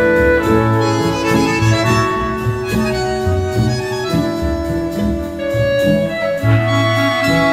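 Instrumental film-score music: a slow melody of held notes over strings and a low bass line.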